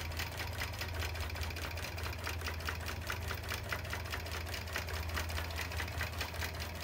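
Gammill long-arm quilting machine stitching on its baste setting, the needle going up and down in a fast, even rhythm of ticks over a steady motor hum as it sews a basting line across the batting.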